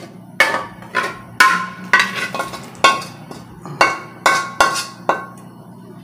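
A metal utensil knocking against a cooking pot: about ten sharp, ringing clinks at an uneven pace, stopping a little after five seconds in.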